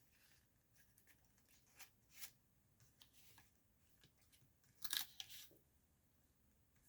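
Faint, scattered rustling and crinkling of a handmade paper junk journal's pages, tags and notecards being handled, with a louder crinkle about five seconds in.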